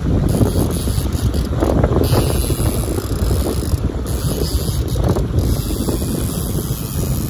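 Wind buffeting the microphone: a rumbling, gusting rush strongest in the low end, with no steady tones.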